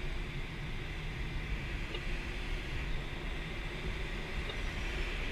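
Steady rush of air past the canopy of an ASK 13 glider in flight, heard from inside the cockpit.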